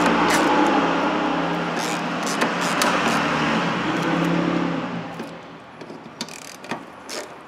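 A power ratchet spinning a socket on a long extension, running down a rear sway bar bushing bracket bolt with a steady whir, then stopping about five seconds in. A few light metallic clicks follow.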